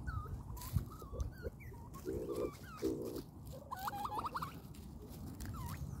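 Reeves's pheasants calling: two short, low rattling calls about two and three seconds in, among thin chirping calls.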